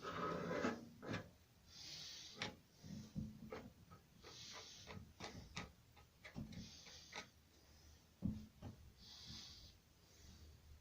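Faint clicks, taps and light scrapes of hand work, with a soft hiss about every two and a half seconds.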